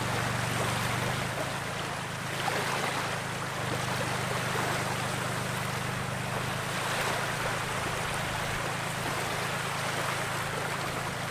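Small waves washing onto a sandy lake shore in the wind, the wash swelling and easing every couple of seconds, over a steady low hum.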